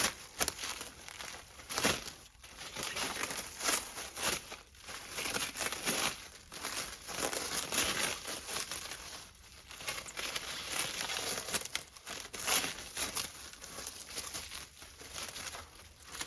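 Cellophane wrapping being crinkled, torn and peeled off by hand, in irregular bursts of crackling rustle.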